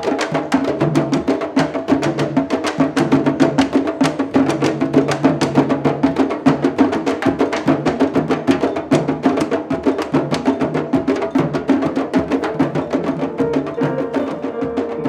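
Candombe drumming: drums struck with hand and stick in a fast, steady, driving rhythm, with sharp stick clicks among the deeper drum tones. A held note comes in near the end.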